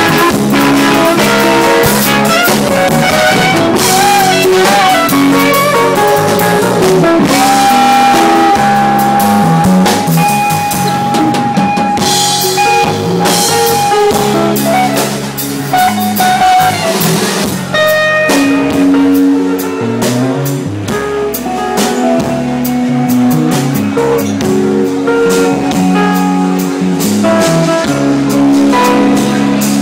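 Band music with drum kit and guitar playing a blues-jazz jam. A long held note runs through the middle.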